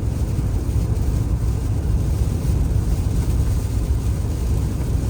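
Steady road and engine rumble of a truck driving on the highway, heard from inside the cab.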